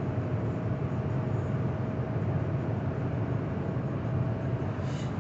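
Steady low rumble of a car driving, heard from inside the cabin: engine and tyre noise at an even level, with a faint steady high whine. A brief high-pitched chirp comes near the end.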